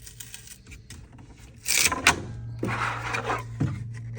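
Handling of a freshly finished 3D print: soft clicks, then a loud scraping snap about two seconds in as the plastic part comes free, a rustling scrape, and a knock near the end. A steady low hum comes in about two seconds in.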